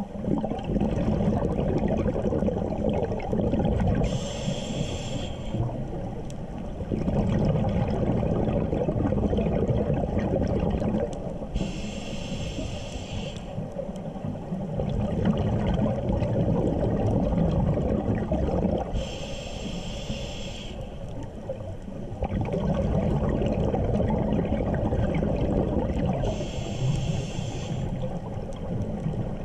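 Scuba diver breathing through a regulator underwater: a short hiss on each inhale, then a long rumble of exhaled bubbles. Four breaths come about seven seconds apart.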